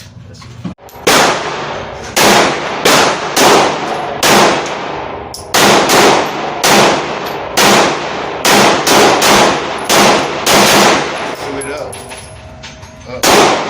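Gunfire: about fifteen gunshots over some ten seconds, irregularly spaced, some in quick pairs, each with a ringing echo.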